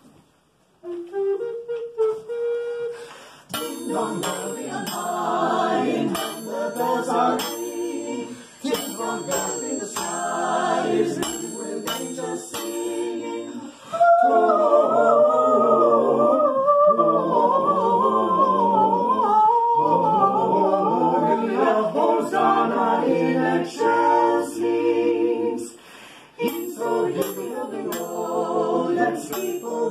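Small mixed-voice ensemble singing a Christmas carol a cappella, with small bells jingling in time above the voices. It starts with a single held note, and the singing gets louder about halfway through.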